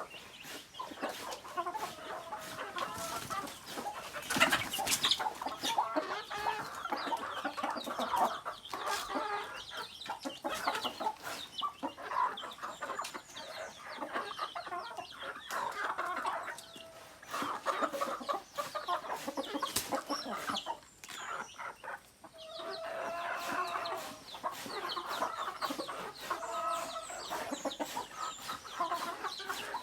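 A flock of native chickens clucking continuously, many birds calling over one another, with scattered sharp clicks among the calls.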